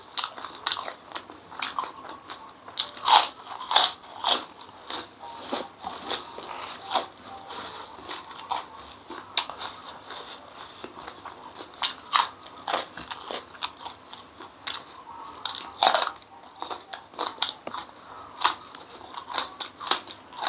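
Crisp white crackers (kerupuk) being bitten and chewed between mouthfuls of saucy noodles: loud, irregular crunches a few times a second, with wet chewing in between.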